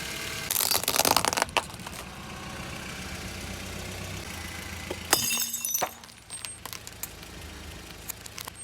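Car tyre rolling over and crushing crunchy objects, with a burst of crackling and snapping about half a second in and another shorter burst of cracks about five seconds in. The car's engine runs low underneath.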